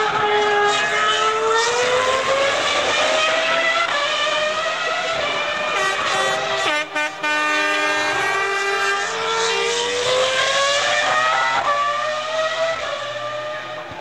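2003 Formula 1 car's 3.0-litre V10 engine at high revs, its note climbing steadily. About seven seconds in it cuts out briefly, then comes back lower in pitch and climbs again, fading near the end.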